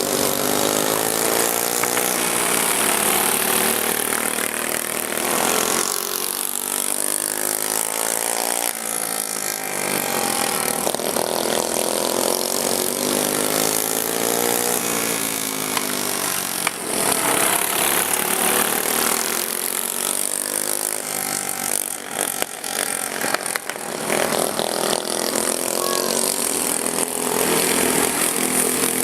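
Several racing lawn mowers' small engines running hard, their pitch repeatedly rising and falling as they rev and pass by.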